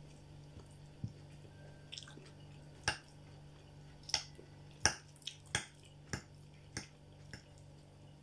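Close-miked eating: a person chewing a mouthful of stewed cabbage and potato, with sharp, irregular wet clicks from the mouth and the fork working in the food on the plate. A steady low hum runs underneath.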